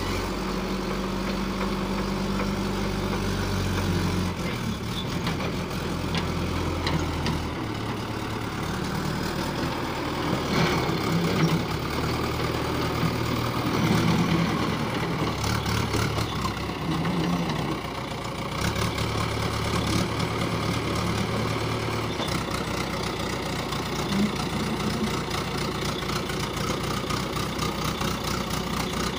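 JCB 3DX backhoe loader's diesel engine running, its speed rising and falling several times as the loader digs soil and lifts the bucket.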